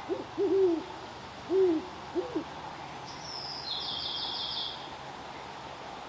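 Great horned owl hooting: a phrase of about five deep hoots in quick succession, the last two short and close together, within the first two and a half seconds.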